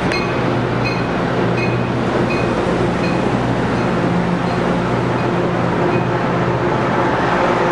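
Amtrak Pacific Surfliner bilevel passenger cars rolling past, a steady rumble of wheels on rail with a low hum underneath. A short high ding repeats about every two-thirds of a second and fades out near the end.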